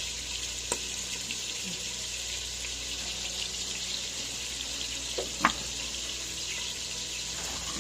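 Water running steadily from a kitchen tap, with a couple of light knocks, one about a second in and one past the middle.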